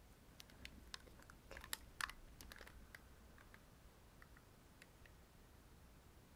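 Faint, scattered clicks and light taps from hands handling a pair of Cresyn CS-HP500 headphones. The clicks cluster in the first three seconds, then thin out to an occasional tick.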